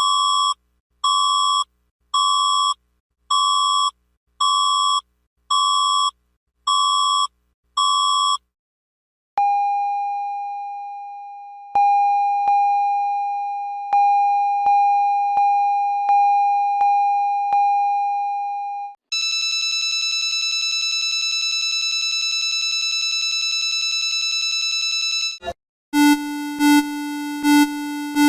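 A run of emergency-alert-style alarm tones played as electronic beeps. First come eight short beeps; a long steady tone follows that begins re-sounding and fading about once a second. A buzzier steady tone comes next, and near the end a lower, louder pulsing beep starts.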